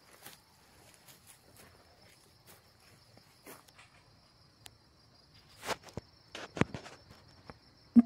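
Footsteps of a person walking on a sandy, grassy riverbank, as scattered short scuffs and knocks, a few of them louder near the end. A steady, high insect drone runs behind them.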